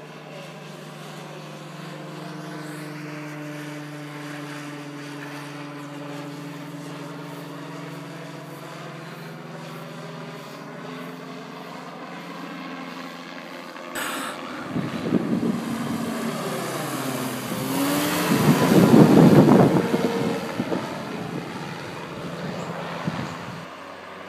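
Engine and propeller drone of a weight-shift microlight trike flying overhead, steady at first with its pitch slowly drifting. From about halfway it grows much louder and rougher, loudest about 19 seconds in as it passes close, its engine note sliding in pitch as it goes by.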